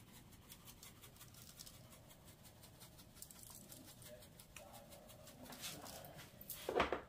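Ground pepper being shaken from a cardboard shaker box onto a pork roast: a faint, irregular patter of fine grains, with a louder knock near the end.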